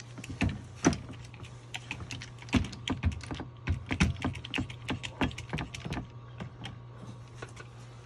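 Irregular metal clicks and taps from a hydraulic crimping tool being slid and shifted into place over the adapter on a flexible shaft cable, over a steady low hum.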